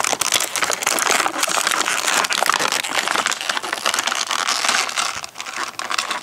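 Clear plastic toy packaging being crinkled and pulled apart by hand, a dense, crackly rustle that eases off about five seconds in.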